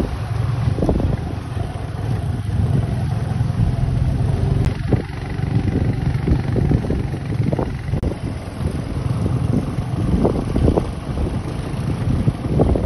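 Small motorcycle riding over a rough gravel dirt road, its engine running steadily with wind on the microphone.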